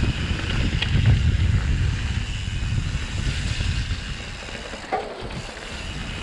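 Mountain bike rolling fast down a dirt trail: tyres rumbling over the ground and wind buffeting the microphone, with a few faint knocks from bumps.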